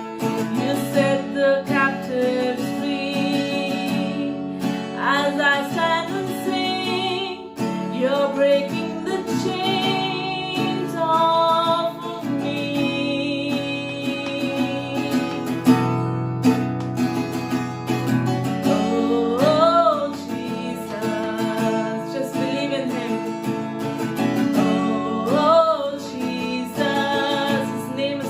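Slow worship music: acoustic guitar strumming sustained chords under a wavering lead melody line.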